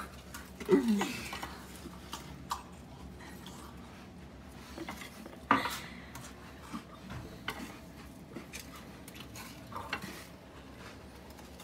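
Scattered clinks and knocks of a plate and a drinking glass on a kitchen counter during hurried eating, with a short vocal sound just under a second in and the sharpest knock about halfway through.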